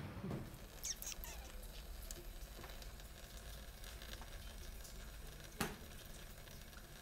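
Tabby cat lapping water from a thin stream running from a tap into a sink: faint trickling with small wet licking clicks, and one sharper click about five and a half seconds in.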